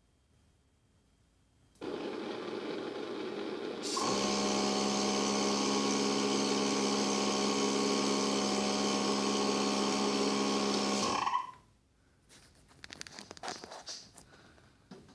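Thermal barrier coating test rig starting its automatic heating cycle: its air flow comes on with a hiss about two seconds in, then gets louder, with a steady hum under the hiss, once the gas burner lights about four seconds in. It runs steadily for about seven seconds and cuts off sharply, followed by a few handling rustles.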